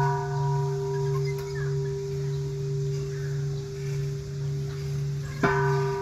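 Large hanging bell struck with a suspended wooden log striker, ringing on with a deep hum that slowly swells and fades under several higher ringing tones. It is struck again about five and a half seconds in.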